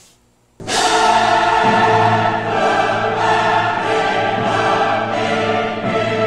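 Dramatic choral music with orchestra, bursting in suddenly about half a second in and then holding loud, sustained chords.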